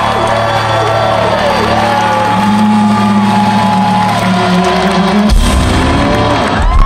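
Live rock band playing loud through a concert PA: held bass and guitar notes under wavering pitched lines, with crowd whoops and shouts. About five seconds in, a heavy low crash of drums and bass hits.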